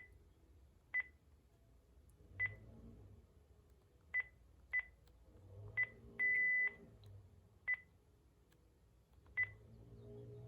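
Keypad beeps from a Panasonic KX-TG5432M cordless phone handset as its settings menu is stepped through: seven short single-pitch beeps at uneven intervals. About six seconds in comes a longer beep of about half a second, the kind of confirmation tone that follows a saved setting.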